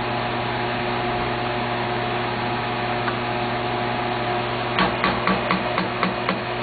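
Steady mechanical hum with hiss. A little under five seconds in, a quick run of light knocks starts, about four a second.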